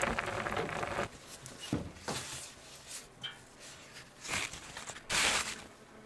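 A wood fire crackling in a Russian oven under a cast-iron pot, cut off after about a second. Then a few light knocks and the rustle of a paper napkin being spread in a birch-bark bread basket, loudest about five seconds in.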